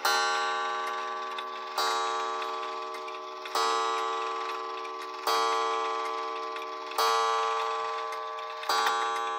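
Mechanical wall clock's hammer striking the hour on a coil gong: six strokes about one every second and three-quarters, each ringing on and fading until the next.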